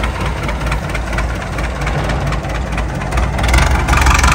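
Massey Ferguson 185 tractor's four-cylinder diesel engine idling with a steady low hum, growing louder near the end.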